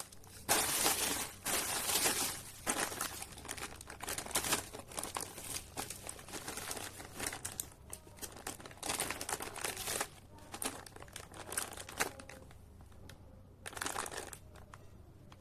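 Irregular crinkling and rustling of something being handled, in clusters of crackles that are loudest in the first few seconds and pick up again near the end.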